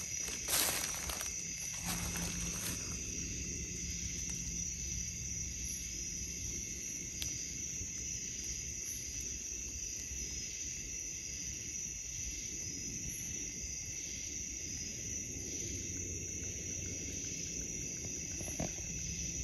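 Night insects chirring in a steady high-pitched drone. A few knocks and rustles in the first three seconds.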